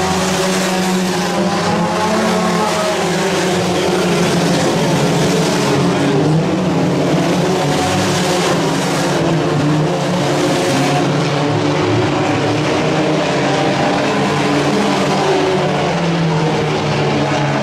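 A field of IMCA Sport Compact race cars, front-wheel-drive four-cylinder compacts, racing on a dirt oval. Several engines overlap, their revs rising and falling as the cars go through the turns and down the straights.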